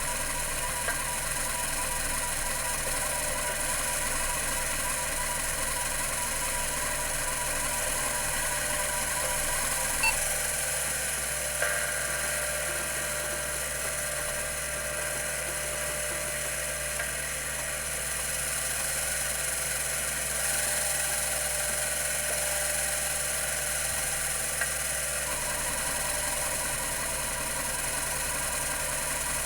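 Computer Memories Inc. CM-5412 10 MB full-height hard drive running: a steady whir with many whining tones from its two platters spinning at 3600 RPM. The whine shifts slightly a few times, and a few single faint ticks are heard.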